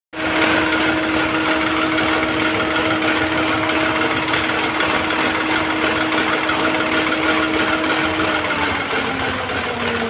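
Renault Triber's 1.0-litre three-cylinder petrol engine running at idle while misfiring. It is a steady engine-bay noise with a humming tone that sinks a little in pitch near the end.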